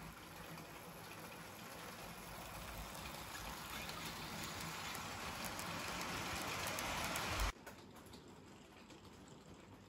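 Model electric locomotive and its wagons running on the model track close by, a steady noise of wheels and running gear that grows louder as the train approaches. It drops off suddenly about seven and a half seconds in to a quieter running sound.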